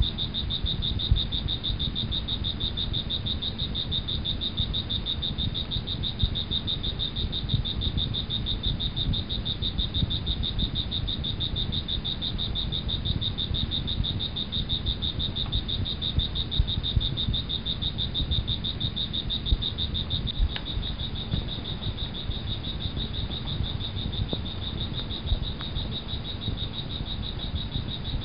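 Nature ambience: a steady, high, rapidly pulsing insect trill over a low, uneven rumble.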